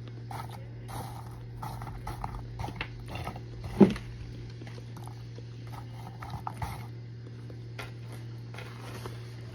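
Baked cornstarch being crunched: irregular crisp crackles, with one sharp loud snap about four seconds in, over a steady low hum.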